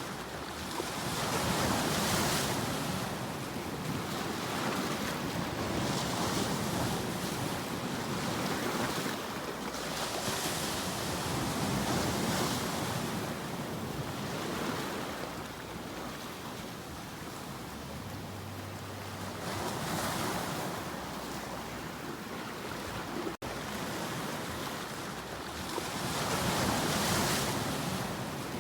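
Ocean waves breaking and washing onto a shore: a continuous rush of surf that swells and eases every few seconds.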